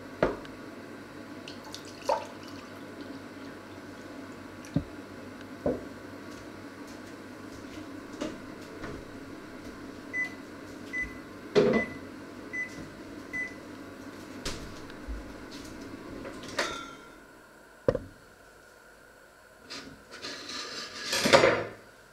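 Steady hum of a running kitchen appliance with five short electronic beeps about ten to thirteen seconds in; the hum cuts off about seventeen seconds in. Scattered clinks and knocks of things handled on the counter, and a louder rushing noise near the end.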